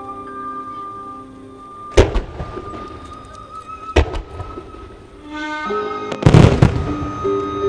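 Recorded music playing over loudspeakers, broken by aerial firework shells bursting: two sharp single bangs about two seconds apart, then a louder volley of bursts about six seconds in, with rapid crackling pops starting near the end.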